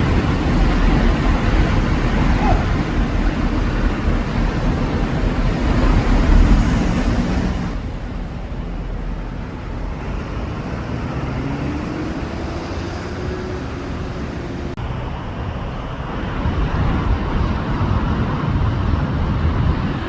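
Road traffic: motor vehicle engines running and passing, loud for about the first eight seconds, then dropping abruptly to a quieter traffic hum.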